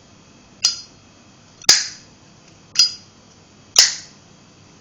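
A new, unused black matte Zippo lighter's lid flicked open and snapped shut twice, making four sharp metallic clicks about a second apart, each with a brief ring.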